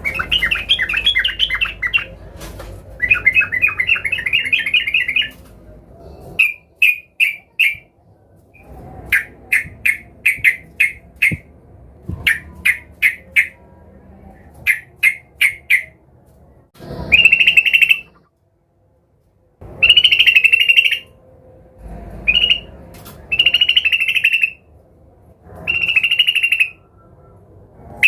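Yellow-vented bulbul (trucukan) singing in loud bursts: rapid chattering trills alternating with runs of short, sharp repeated notes, with brief pauses between phrases.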